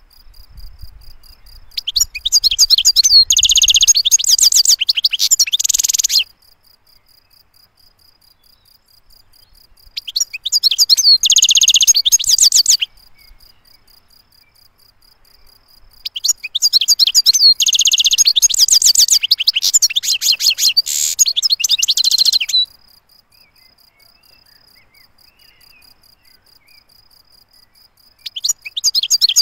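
European goldfinch (saka) singing in bouts of rapid, high twittering song: three bouts of a few seconds each with pauses between, and a fourth starting near the end.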